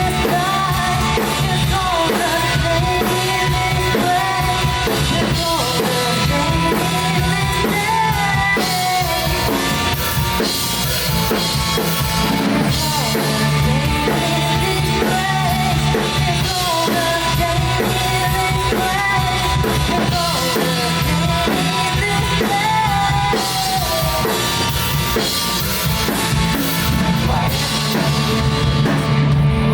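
Music with a drum kit keeping a steady beat under a melody.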